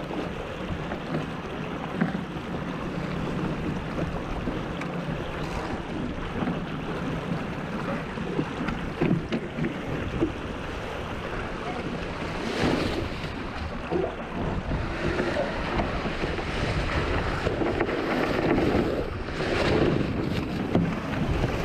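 Wind buffeting the microphone and water rushing along the hull of a J/22 sailboat sailing hard in high wind, with louder surges of splashing spray partway through and near the end.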